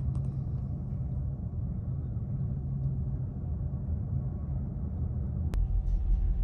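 Low, steady engine rumble. About five and a half seconds in there is a sudden cut to a deeper, louder rumble.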